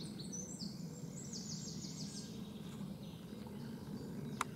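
Woodland birdsong: small birds singing high chirps and quick trills over a faint steady background noise, with one sharp click about four seconds in.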